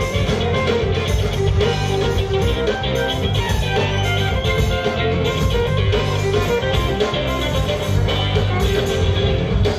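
Live band playing together: electric guitars, bass and drum kit, with a fiddle bowed over them, in a steady, dense mix.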